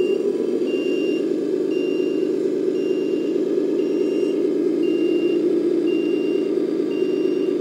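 Radio-controlled 10x10 roll-off dump truck driving at low speed: a steady droning hum, with a short high beep repeating about once a second, like a truck's warning beeper.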